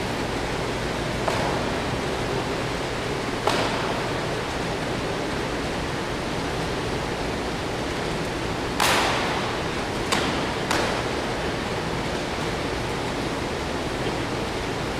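Steady hiss of background noise broken by five sharp slaps, the loudest about nine seconds in, from karate partners' blocks and strikes landing on arms and snapping gi sleeves during pre-arranged sparring.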